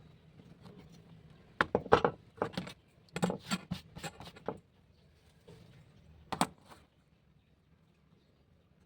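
A quick series of sharp clicks and knocks of hard objects, clustered from under two seconds in to about four and a half seconds, then one more knock at about six and a half seconds.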